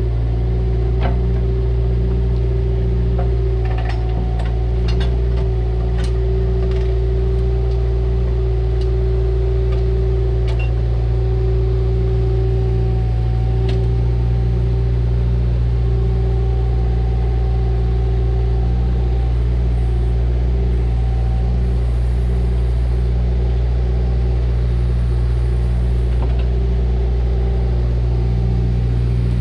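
Bobcat 331E compact excavator's diesel engine running steadily, with a steady whine over the drone. A few light clanks come about four to six seconds in.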